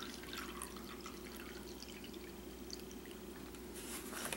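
Clear liquid pouring from a plastic gallon jug into a glass measuring cup, a faint trickle and splash as the cup fills. A short, louder burst of noise comes near the end.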